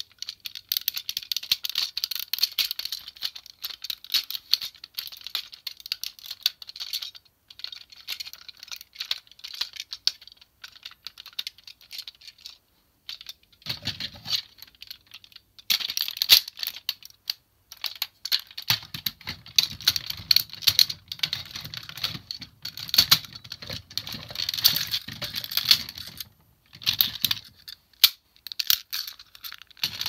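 Hard plastic parts of a DX PatKaiser combining robot toy clicking and rattling in quick runs as hands take it apart and fit the pieces back together, with a couple of brief pauses partway.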